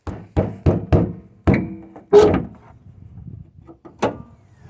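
A series of dull thunks and knocks, several in quick succession over the first two seconds and one more near the end, a couple of them with a short ringing tone.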